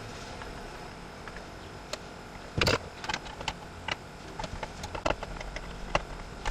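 Scattered sharp clicks and knocks of hands and a screwdriver working on the plastic center console trim, with the loudest knock about two and a half seconds in.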